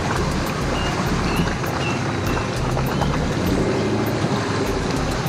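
Range Rover wading slowly through deep water, its engine running under a steady wash of water sloshing and rushing around the body and wheels.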